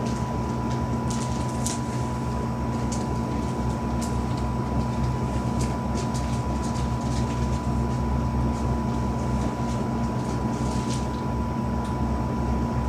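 Freight train of covered hopper cars rolling past: a steady rumble with scattered light clicks, over a constant high hum.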